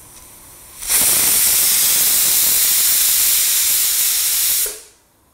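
Stovetop pressure cooker releasing steam through the weighted vent on its lid: a loud, steady hiss that starts about a second in, lasts nearly four seconds and stops abruptly.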